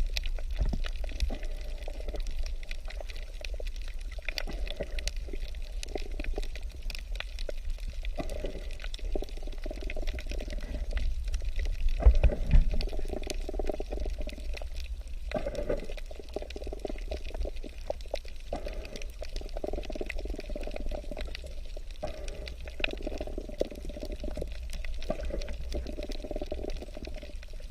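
Underwater water sound: a muffled, gurgling wash of moving water and bubbles that swells and fades every second or two over a steady low rumble, loudest about twelve seconds in.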